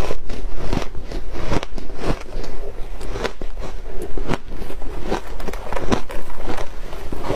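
Close-miked crunching and chewing of crisp layered refrozen shaved ice, a steady run of sharp, irregular crunches as the brittle ice breaks between the teeth.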